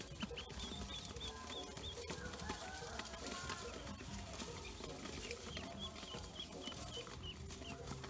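A brood of Pekin and black ducklings peeping, in quick runs of short high chirps, about six a second, with scattered light clicks.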